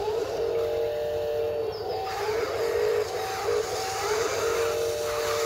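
Electric motors and gearboxes of a Huina 583 RC wheel loader whining as the loader pushes its bucket into gravel. The whine keeps dropping out and coming back with a short rise in pitch as the motors start and stop.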